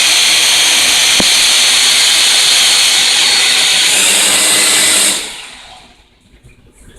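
Three Syma toy quadcopters (two X5SC and an X8W) with motors and propellers spinning together off one controller: a loud whirring whine that shifts higher about four seconds in, then spins down and stops about five seconds in.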